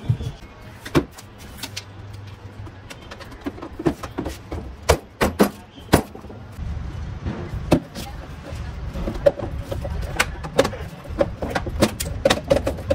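Hands handling and tapping the plastic body of a children's electric ride-on toy car: irregular sharp clicks and knocks, now sparse, now in quick clusters.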